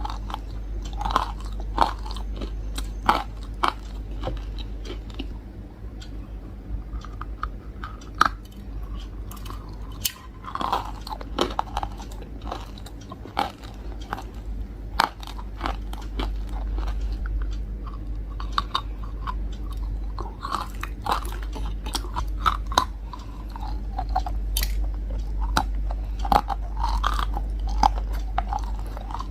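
A person biting into and chewing large, hard, crunchy chunks close to the microphone: repeated sharp cracks with crunching between them, over a steady low hum.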